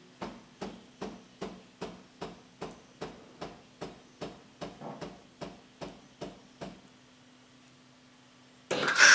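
Philips LatteGo 3200 bean-to-cup espresso machine making a latte: a steady run of short knocks, about two and a half a second, for six or seven seconds. After a short pause, a loud hiss starts near the end as the machine begins frothing the milk.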